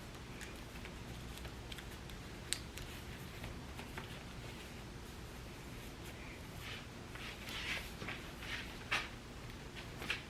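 Clothing rustling as it is handled and put on, with soft rustles bunched together about two-thirds of the way in and a few sharp clicks, over a low steady hum.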